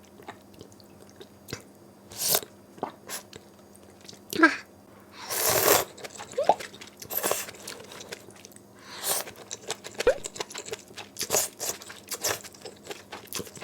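A person eating malatang: chewing with irregular crunching bites and wet mouth sounds.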